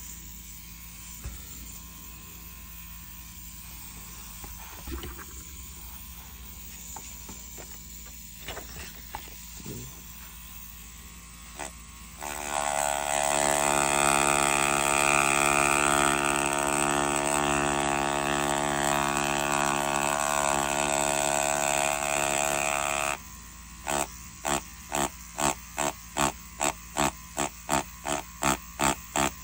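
Mast Archer rotary tattoo pen fitted with a ballpoint cartridge. After a quiet stretch with a few small clicks, it runs with a steady hum for about ten seconds, stops suddenly, then starts and stops in short bursts about twice a second, the way it is pulsed to put down dots.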